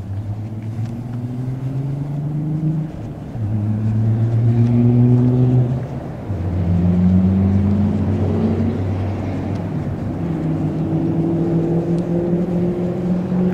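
A road vehicle's engine accelerating. Its pitch climbs, drops back at each gear change and climbs again, through about four gears.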